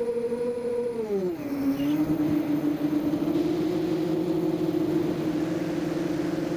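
ZMR250 mini quadcopter's brushless motors and propellers whining under wind hiss; the pitch drops about a second in as the throttle is eased, then holds steady.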